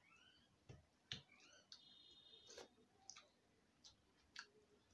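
Faint eating sounds: soft clicks of chewing and lip smacking while hands work rice and curry in steel dishes. A few faint high rising tones sound in the background.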